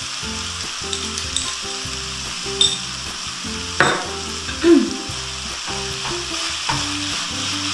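Minced pork and beef frying with a steady sizzle in a pan over a gas burner, just after tomato paste has gone in. There are a couple of brief knocks around the middle, and a wooden spoon stirs the mince near the end.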